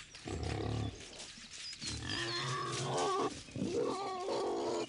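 Wild boar grunting deeply, then a run of higher squeals from the striped piglets.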